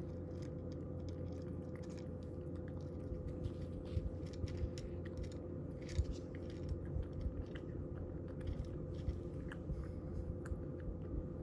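Cat crunching dry kibble from a bowl: irregular crisp crunches and clicks that grow more frequent about three seconds in. Under them runs the steady hum of a fan heater.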